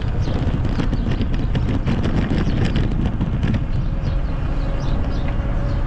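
Wind rushing over the microphone with road rumble from riding along a street, with a run of rattling clicks in the first few seconds and a faint steady whine from about four seconds in.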